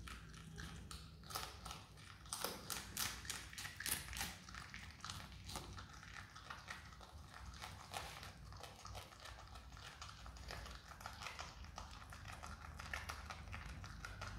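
Himalayan marmot biting and chewing raw red cabbage: a string of crisp, wet crunches, thickest in the first half and sparser after.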